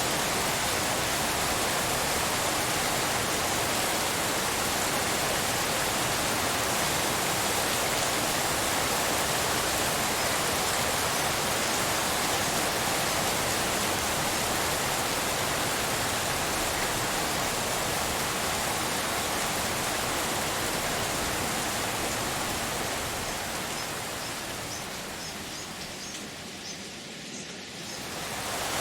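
Steady, even hiss of rainfall, close to pink noise. Near the end it fades down for a few seconds, with a few separate drops ticking through, then swells back up.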